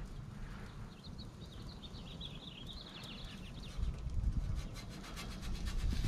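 A bird chirping a quick run of high notes for about two seconds over a low rumble. Near the end comes the scrape and clatter of a perforated metal pizza peel sliding under the pizza on the oven stone.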